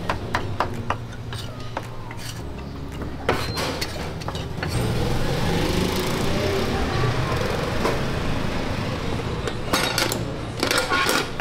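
A knife chopping meat on a board in quick taps during the first second or so. Then a steady engine hum with hiss swells for several seconds, the loudest part, like a motor vehicle passing. A cluster of sharp clinks and knocks comes near the end.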